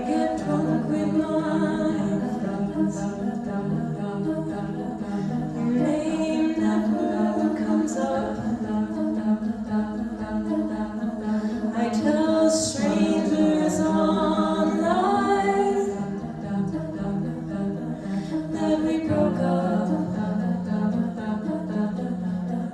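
A cappella vocal group singing: layered voices holding sustained chords under a lead vocal line, with no instruments.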